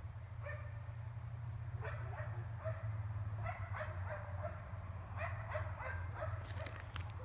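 A neighbour's dog barking over and over about 400 feet away, short barks coming in quick runs, with a steady low hum underneath.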